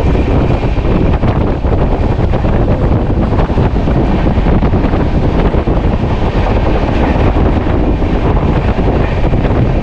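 Indian Railways express train running at speed, heard at an open coach window: wind buffeting the microphone over the steady rumble of the coach on the rails.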